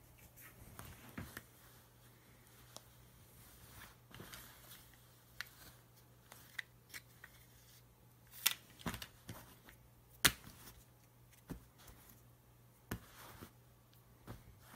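Hands handling the cardboard box, paper inserts and accessories of a new iPhone 7: light rustling and scattered taps and clicks, with two sharper knocks about eight and a half and ten seconds in.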